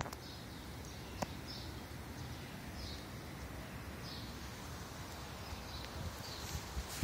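Faint outdoor background: a low steady rumble with distant bird chirps now and then, and a single sharp click about a second in.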